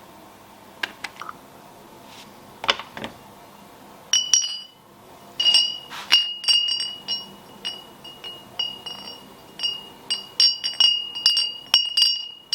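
Steel bolts clinking against a container, handled during bluing: a couple of light knocks, then from about four seconds in many quick clinks, each leaving the same high ring.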